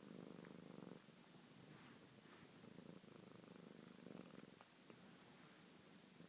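Domestic cat purring, the low pulsing hum swelling and easing in turn with its breathing.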